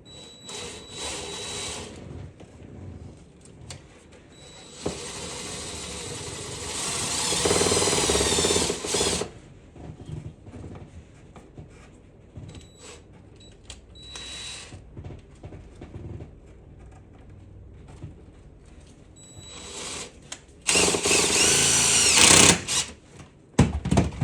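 Power drill driving screws into the shifter console plate in several runs. There is a short run near the start, a longer one that speeds up and grows louder from about five to nine seconds, a brief burst around fourteen seconds, and another long run around twenty to twenty-two seconds. Small knocks of handling fall between the runs.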